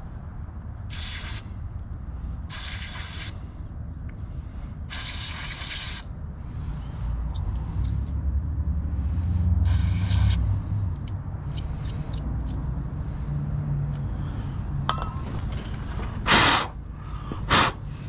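Aerosol electrical contact cleaner sprayed onto a fog light wiring connector to clean it. It comes in six short hissing bursts, the longest about a second, over a steady low rumble.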